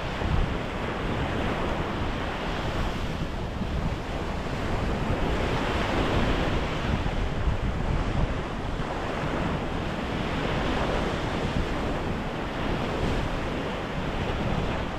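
Surf washing onto the beach in slow swells, with wind buffeting the microphone.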